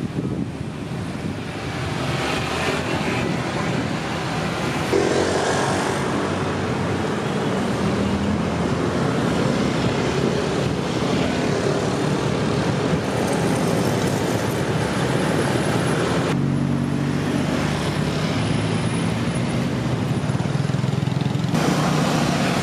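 Street traffic: cars and motorbikes running and passing over a steady road noise. The sound changes abruptly a couple of times, about two thirds of the way in and again near the end.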